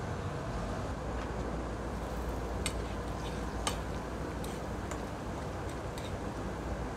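A metal spoon clinking against a frying pan as food is stirred, several sharp clicks starting a few seconds in, over a steady low rumble.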